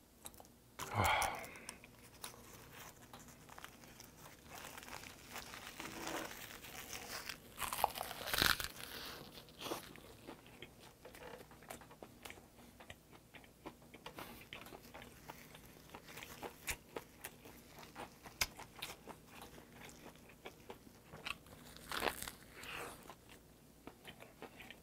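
A person chewing a dried-laver roll of rice and mustard-leaf kimchi, with crisp crunches and clicks throughout. The crunching is louder about a second in, around eight seconds in and again around 22 seconds.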